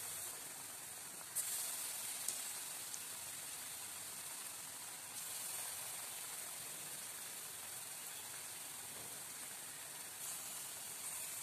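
Balls of semolina batter deep-frying in hot coconut oil, a steady sizzle of bubbling oil. It swells briefly a few times as more batter balls are dropped in.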